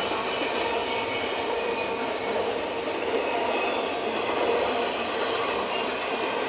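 Double-stack intermodal freight train passing close by: a steady, even noise of steel wheels rolling on the rails as the container well cars go past.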